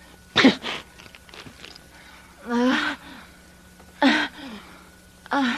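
A woman gasping and crying out in labor pain: a sharp gasp about half a second in, a drawn-out groan midway, then two more short pained cries.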